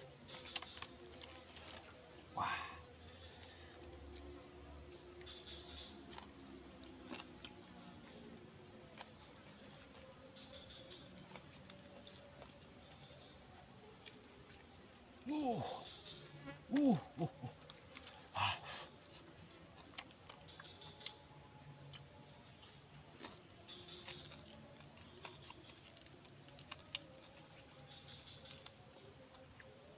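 Steady high-pitched insect chorus running throughout, with a few short sounds in the middle, including two brief calls that bend in pitch.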